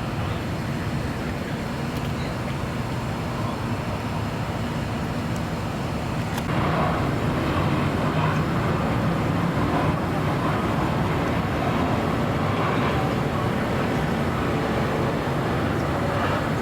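Steady rumble of traffic noise that gets louder about six seconds in.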